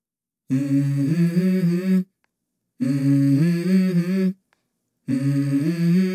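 A low voice humming a short tune in three phrases of about a second and a half each, the pitch stepping between notes, with brief silences between phrases.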